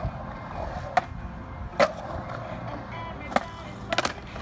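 Skateboard wheels rolling over a concrete bowl, with sharp clacks of the board striking the surface, the loudest about two seconds in. Near the end comes a quick clatter of several hits as the rider bails and the board goes loose.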